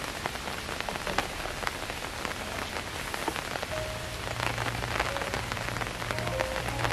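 Steady rain falling, with many individual drops tapping sharply close by.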